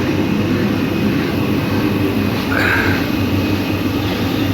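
A steady machine drone, low and unchanging, with a short higher-pitched sound a little past halfway through.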